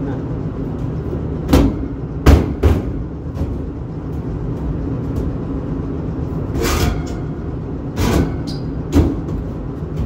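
Furnace running with a steady low hum while its sheet-metal access panel is fitted back on, clanking: sharp knocks about a second and a half in, twice more just after, and again three times near the end.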